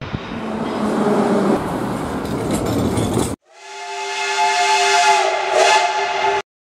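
A business jet running on a runway, heard as a steady rushing noise for about three seconds. After a sudden cut, a steam locomotive's whistle sounds one long chord of several steady tones that swells and then cuts off abruptly.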